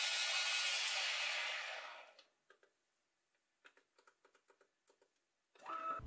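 A small bench metal lathe's spindle and motor run with a steady whirr, then wind down and stop about two seconds in. A few faint clicks follow in near silence.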